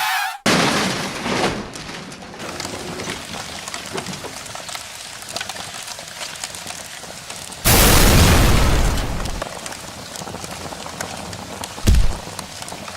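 Car crash sound effects: a sudden loud impact that fades away, then a second, louder blast about eight seconds in lasting about two seconds, and a short heavy thump near the end.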